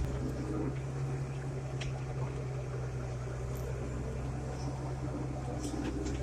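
John Deere 8770 four-wheel-drive tractor's diesel engine running at a steady pace, a low drone heard from inside the cab, with a few faint clicks.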